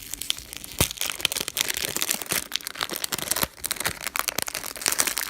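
Plastic packaging crinkling and tearing as a new puzzle cube is unwrapped, a dense run of sharp crackles and snaps.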